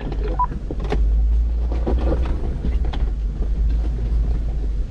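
Off-road vehicle running over rough ground: a steady low rumble from the engine and drivetrain, with scattered knocks and rattles.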